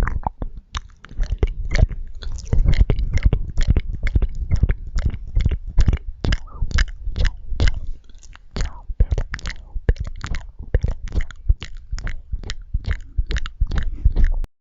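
Close-miked chewing of marshmallows: sticky mouth sounds made of many quick wet clicks and smacks, several a second, that stop abruptly just before the end.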